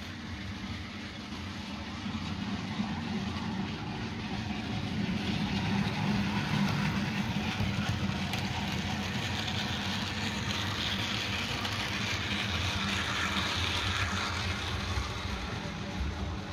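OO gauge model goods train running past on the track: a steady motor hum with wheel and track noise from the wagons. It grows louder after a couple of seconds and drops off near the end.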